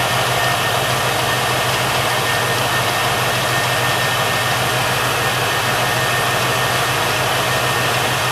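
Pontiac 455 V8 engine of a 1973 Trans Am idling steadily, running after its rocker arms were re-adjusted on new rocker studs.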